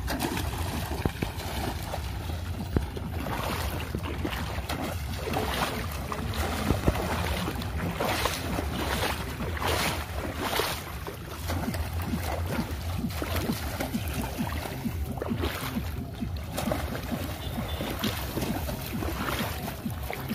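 Wind blowing on the microphone, with water splashing and sloshing as legs wade through shallow water. The splashes come in several short clusters, thickest around the middle.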